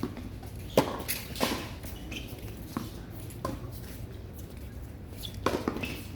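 Tennis rally: the ball struck by rackets and bouncing on the court, heard as a series of sharp, irregularly spaced pops.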